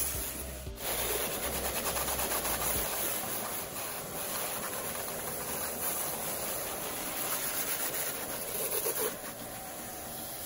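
Jet of a STARQ electric high-pressure washer spraying water onto a car: a steady noisy hiss that wavers in strength, with a brief break about a second in.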